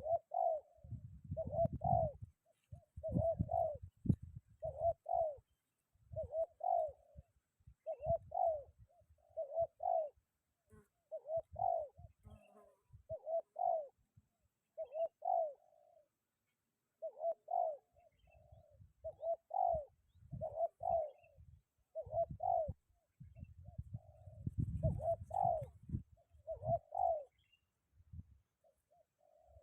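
Spotted dove cooing over and over in short repeated phrases. Low wind rumble on the microphone comes and goes.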